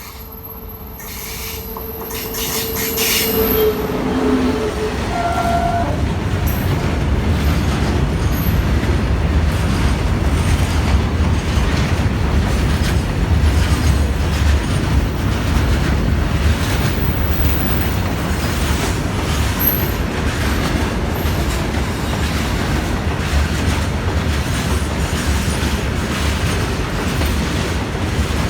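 Indian Railways goods train passing close by. A horn is held for the first few seconds as it draws near, then the wagons run past in a steady rumble, their wheels clattering over the rail joints and squealing on the track.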